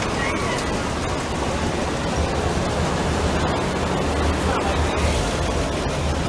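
WWII-era military vehicles passing slowly over cobblestones: a steady, noisy rush with a low engine rumble that grows stronger about two seconds in as a large army truck passes close.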